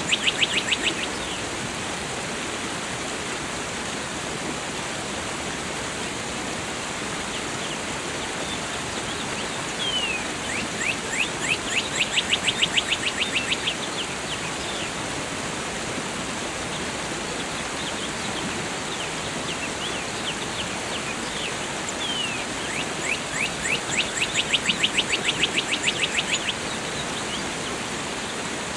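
Steady rush of a waterfall, with a songbird singing over it: a fast trill of many quick repeated notes that comes three times, at the very start, about midway and again near the end, with a few single chirps between.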